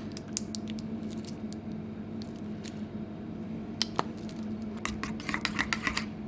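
Scattered light clicks and taps over a steady low hum. From about five seconds in, a quick run of scraping clicks as a plastic spoon starts stirring sauce in a stainless steel bowl.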